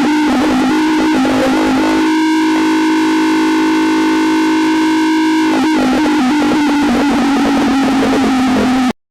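Loud, distorted electronic alarm tone holding one steady low pitch, with a higher chord layered over it from about two seconds in to about halfway through. It cuts off suddenly near the end.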